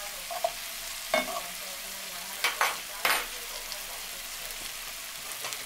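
Chicken breasts and sugar snap peas sizzling steadily in a nonstick skillet. A metal fork stirs the peas, with four short scrapes and taps against the pan in the first three seconds or so.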